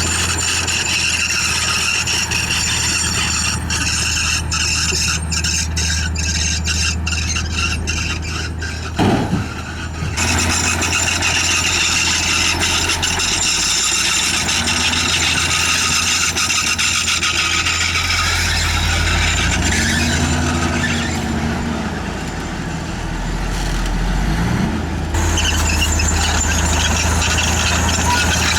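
Crawler bulldozer working: a steady diesel engine hum under a high-pitched squeal from the running gear. A run of rapid clanks comes a few seconds in, a brief loud jolt follows at about nine seconds, and the engine dips and then picks up again near the end.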